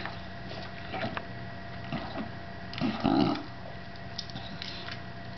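A bulldog eating pieces of steak from a ceramic bowl: irregular wet chewing, licking and small clicks of teeth and jaws against the bowl. About three seconds in there is a louder noise from the dog, lasting about half a second.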